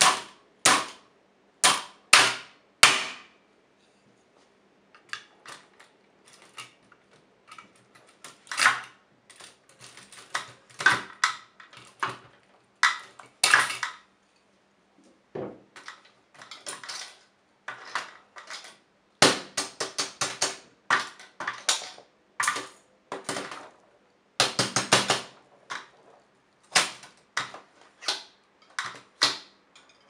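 Hammer repeatedly striking an Olivetti Lettera 25 portable typewriter: sharp metallic clacks and rattles of its keys and typebars. Four loud blows come in the first three seconds, then lighter irregular hits with quick flurries of strikes later on.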